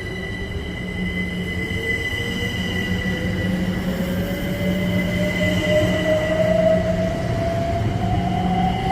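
A train gathering speed, a whine rising steadily in pitch, over steady higher-pitched tones and a low hum.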